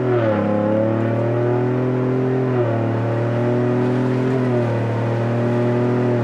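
Ford Bronco's 2.7-litre twin-turbo V6 exhaust, heard from inside the cabin while driving, with the Magnaflow muffler's cap removed so it runs almost straight-through: the loudest configuration with the mufflers still on. A steady, loud engine drone whose pitch steps down about a quarter second in and again about two and a half seconds in.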